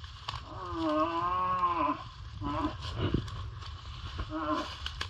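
Red deer rut roar: one long bellow starting about half a second in and lasting about a second and a half, rising a little in pitch and falling away at the end, followed by two short grunts.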